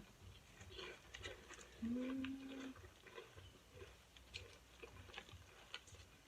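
Faint eating sounds: soft chewing with light scattered clicks. There is a short closed-mouth hummed "mm" about two seconds in.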